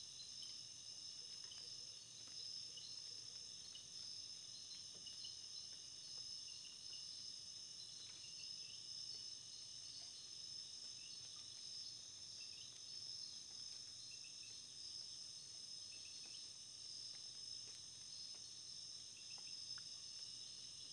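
Faint, steady high-pitched chirring of insects such as crickets, with scattered short, higher chirps over it.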